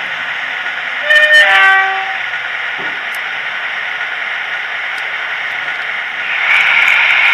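Model diesel locomotive of the Brush 'Falcon' running along the track, a steady whirr of motor and wheels that grows louder near the end as it draws close. About a second in, a short horn-like call that steps down in pitch.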